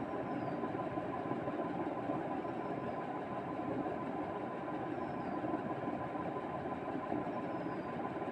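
Steady background hum and hiss with a faint constant high tone and a few faint high chirps; no sneeze or voice.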